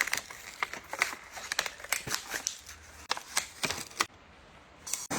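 Irregular clicks and light clattering of tools and copper fittings being handled, then a burst of hiss right at the end.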